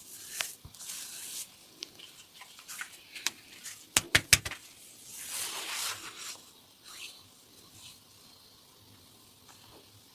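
A quick run of about four sharp joint cracks about four seconds in, between soft rubbing and brushing of hands over skin and hair during a massage.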